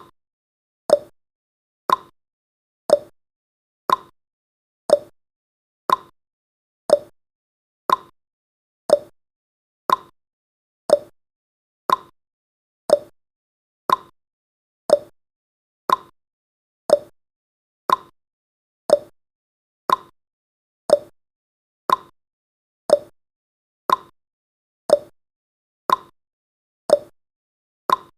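Countdown timer's tick sound effect: one short, sharp click every second, evenly spaced, each dying away quickly into silence before the next.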